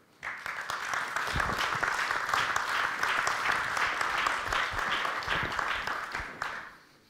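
Audience applauding: many hands clapping together, starting just after the start and dying away near the end.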